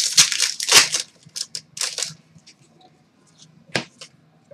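Trading cards being flicked through and shuffled by hand: a quick run of crisp card-stock snaps and slides in the first two seconds, then a few single snaps.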